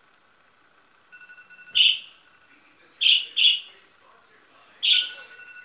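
Short, loud bird-like chirps, four in all, two of them in quick succession around the middle, over faint thin steady tones.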